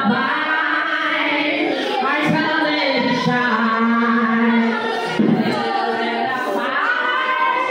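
Voices singing in worship, with one note held for about a second and a half midway.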